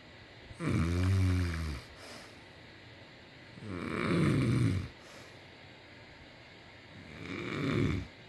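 A person snoring: three snores, each about a second long and roughly three seconds apart. The first is low and buzzing with a distinct pitch.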